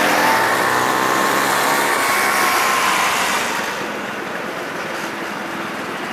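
Motorcycle engines running. The sound gets quieter and duller about three and a half seconds in.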